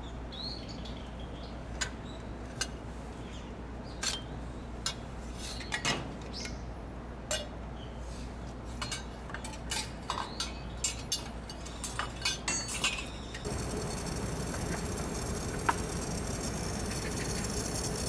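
Metal hand tools clinking and tapping irregularly against the compressor's copper pipe fittings as a wrench is worked on them. About 13 seconds in the taps stop and a steady whirring noise with a faint high whine takes over.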